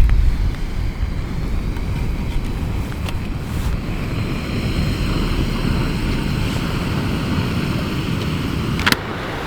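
Wind rushing through forest trees and buffeting the microphone, strongest in a gust at the start. A sharp click comes near the end.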